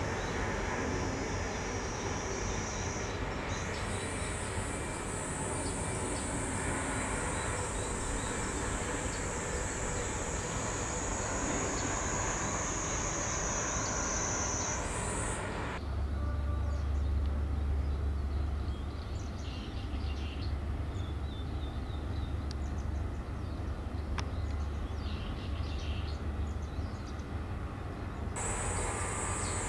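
Steady distant shipyard and harbour background noise with a thin, high whine through the first half and again at the end. About halfway through, the whine drops out and a deep low rumble takes over for about twelve seconds.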